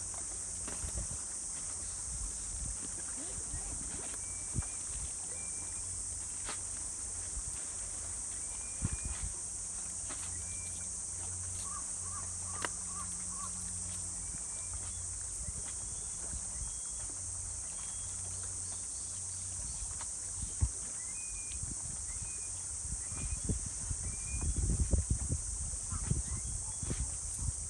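Steady high-pitched insect drone with short bird chirps every few seconds, over a low wind rumble on the microphone that gusts harder near the end.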